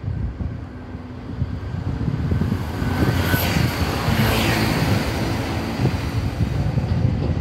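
Seibu 20000-series electric train approaching, a rumbling noise that grows louder from about a second and a half in and then holds steady.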